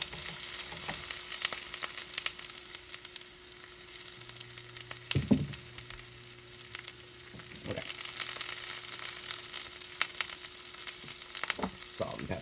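Zucchini slices sizzling and crackling in hot oil in a nonstick frying pan, with a few brief thumps about five seconds in, again near eight seconds and near the end.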